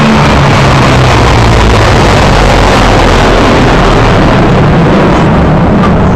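Loud, steady roar of a low military aircraft formation flying overhead: a Tu-95 strategic bomber's turboprops with an Il-78 tanker and escorting jet fighters, with a low drone under the rushing noise.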